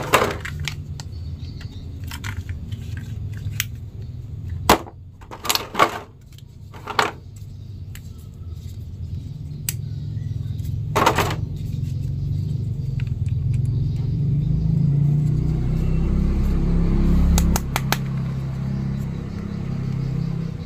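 Plastic action figures being handled and a clear plastic packing bag crinkled: a handful of short, sharp rustles and clicks. Under them runs a steady low hum that grows louder in the second half.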